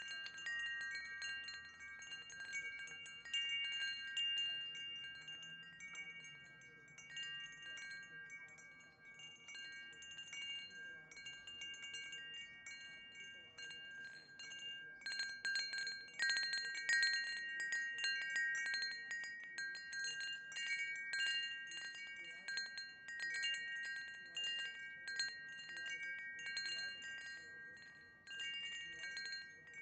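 Wind chimes ringing: a cluster of held high tones struck again and again at uneven intervals, with the strikes coming thicker and louder from about halfway through.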